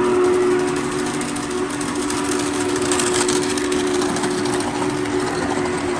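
Steam locomotive whistle sound blowing one long, chord-like blast of several steady tones for about five and a half seconds, over the rattle of model train cars rolling along the track.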